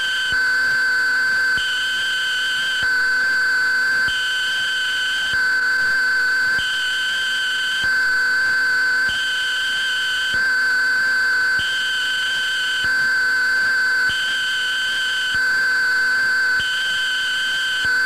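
Electronic drone of several steady high-pitched tones, with a still higher tone switching on and off in an even pattern, about a second on and a second off.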